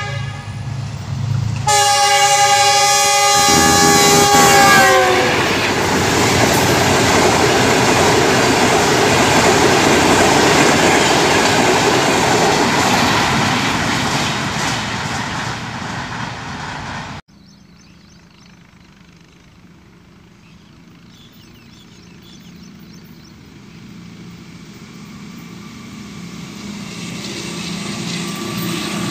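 Diesel locomotive horn blown twice, the second blast falling in pitch as the train passes, followed by the train running past with a loud rumble and clatter of wheels on rails. After an abrupt cut, a second diesel locomotive's engine drone grows steadily louder as it approaches.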